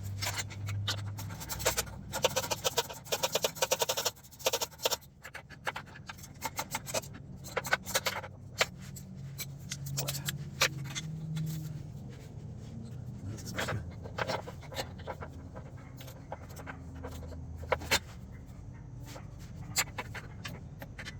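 Socket ratchet clicking in quick runs as the up-pipe bolts are tightened down, followed by scattered single clicks and metal taps.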